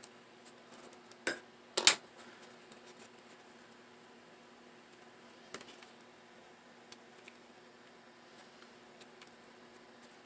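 Sharp clicks and knocks of small objects handled on a hard countertop: two loud ones close together early, a softer one midway, then scattered faint ticks.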